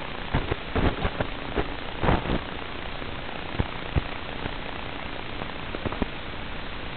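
Steady static hiss from an analog FPV video link, with scattered sharp crackles, several close together in the first couple of seconds and a few single ones later.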